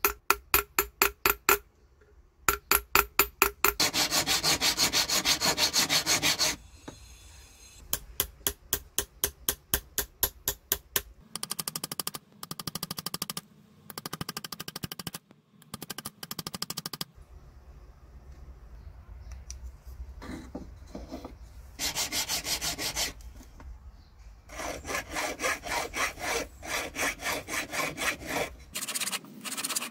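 Quick ringing hammer taps on a silver ring held on a steel rod over a steel bench block, about five a second. These are followed by stretches of a flat hand file rasping across the ring's edge in repeated back-and-forth strokes.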